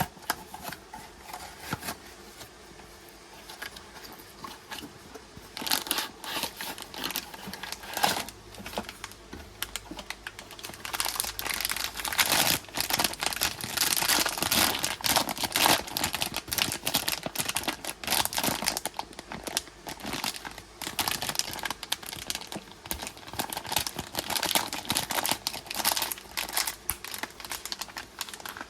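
Packaging being opened by hand: plastic or foil wrapping crinkling and tearing in quick irregular rustles, sparse at first and much busier from about eleven seconds in.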